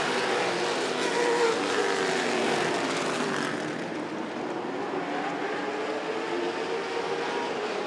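A pack of NASCAR late model stock cars racing on a short asphalt oval, their V8 engines running hard, the pitch sliding up and down as the cars go through the turns and onto the straight.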